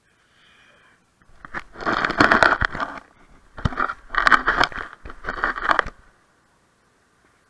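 Handling noise from an SJ7000 action camera being picked up and repositioned: scraping and crackling rub against its body and microphone in three bursts over about four seconds, stopping once it is set down again.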